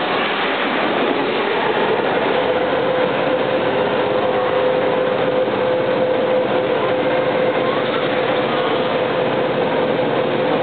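Overhead cranes running while carrying a suspended electric railcar body: a steady mechanical noise, with a steady whine setting in about two and a half seconds in.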